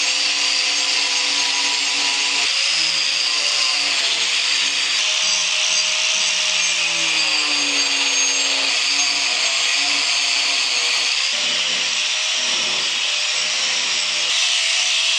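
DeWalt angle grinder with a shaping disc grinding into walnut: a steady motor whine over a harsh abrasive rasp, its pitch dipping and recovering now and then as the disc bears into the wood.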